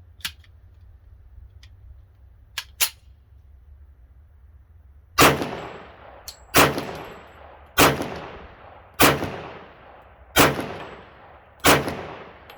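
.45 ACP 1911 pistol firing six slow, evenly spaced shots about a second and a quarter apart, each with an echoing tail, beginning about five seconds in. Before the shots, a few sharp metallic clicks of the pistol being handled.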